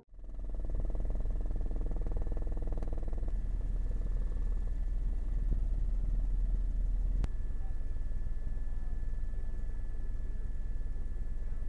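Helicopter running, heard from on board: a steady low rumble with a fast flutter and a faint steady high whine above it.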